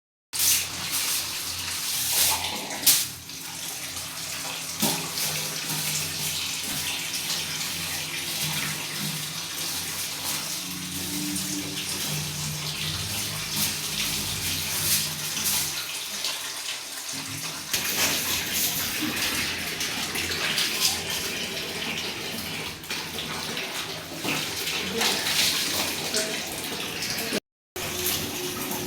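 Water running steadily from a tap and splashing.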